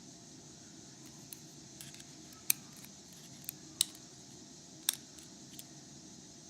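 Light, sharp metallic clicks, about six scattered and irregular, from tweezers and small lock pins and springs being handled while a pin-tumbler Euro cylinder is taken apart.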